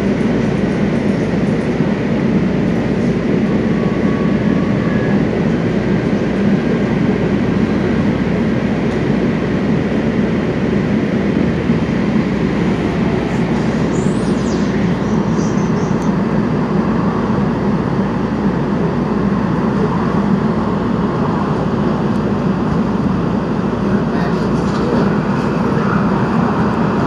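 Steady rumble of a Los Angeles Metro C Line light-rail train, heard from inside the car as it runs.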